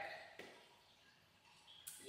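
Near silence: room tone between sentences, with two faint short clicks.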